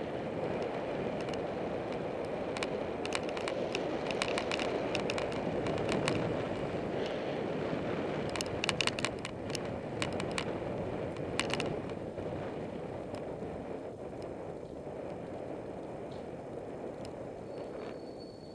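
Wind and tyre-on-asphalt noise from a camera riding on a moving bicycle, with scattered sharp clicks and rattles from the bike and mount. The rush eases off in the second half, and a short high squeak comes near the end.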